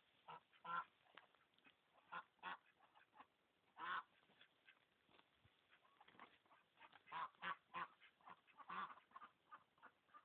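Domestic ducks quacking: a string of short, separate quacks at irregular intervals, coming thickest in the last few seconds.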